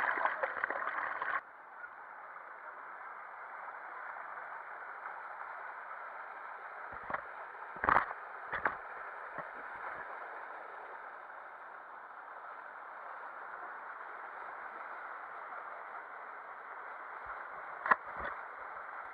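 Water splashing and bubbling, cutting off abruptly about a second in, then a steady rush of water flowing down a water slide under the rider. A few sharp knocks come through around the middle and near the end.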